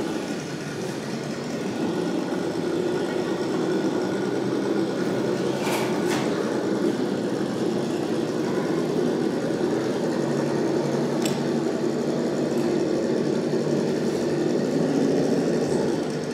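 Electric motors and gearboxes of scale RC crawler trucks whining steadily at low speed as they crawl over a concrete pipe obstacle, with a couple of sharp clicks about six and eleven seconds in.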